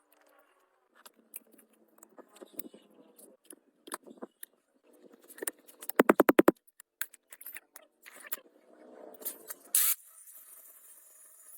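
Workshop handling sounds: scattered metal clicks and scraping, then a quick rattle of about a dozen sharp strokes about six seconds in. Near the end a short loud hiss, followed by a steady high hiss.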